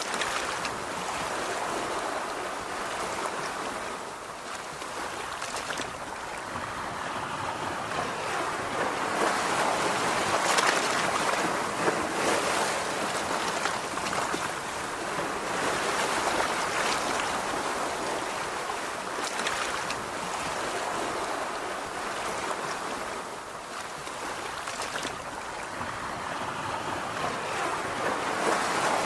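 Calm ocean waves breaking on the shore: a continuous hiss of surf that swells and eases every few seconds.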